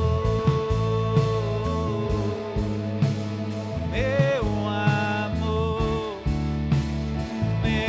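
Slow worship song played live by a band, with a singer holding long notes that slide between pitches.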